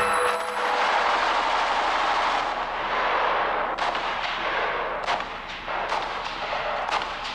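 Shooting video game gunfire: a dense, continuous wash of shooting, with several sharp single shots cracking out in the second half.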